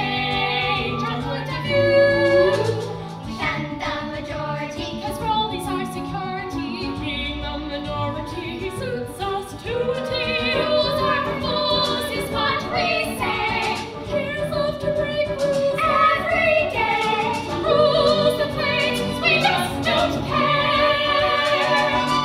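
Opera singing: voices sing a sung passage over musical accompaniment, with long held notes and changing melody lines.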